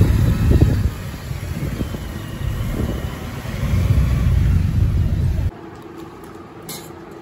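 Low rumble of road and engine noise inside a moving vehicle's cabin, swelling and easing, that cuts off suddenly about five and a half seconds in. After it, a much quieter room background with a few light clicks.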